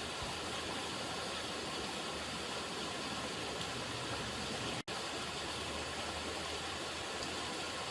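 River water running, a steady even rush with a momentary break almost five seconds in.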